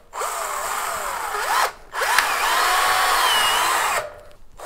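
Cordless drill-driver driving a 3.9×30 mm Fermacell screw into a gypsum-fibre board. The motor runs in two goes with a short break near the middle, its whine rising and falling with the trigger, and stops about four seconds in.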